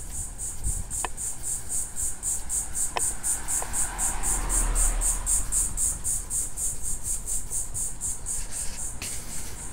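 An insect chirping in a fast, even, high-pitched rhythm of about four to five chirps a second. A few sharp clicks and a low rumble sit underneath.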